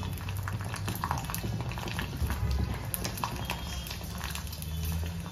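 Sago papads (sabudana kurdai) frying in hot oil in a wok: a crackling sizzle with many small scattered pops, over a steady low hum.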